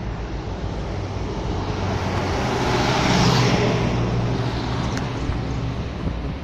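Highway traffic passing close by: a truck and a bus go past. The tyre and engine noise swells to its loudest about three seconds in, then eases, over a steady low rumble.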